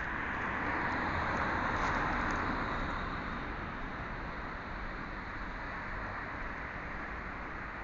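A vehicle driving past, its road noise swelling to a peak about two seconds in and then slowly fading away.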